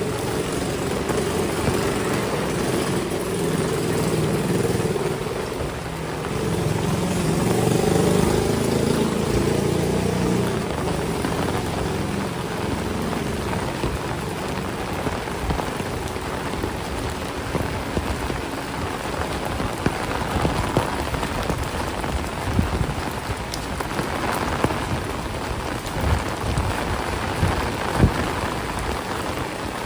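Heavy rain falling steadily and splashing on hard surfaces, with a low rumble during roughly the first third and a few sharp taps later on.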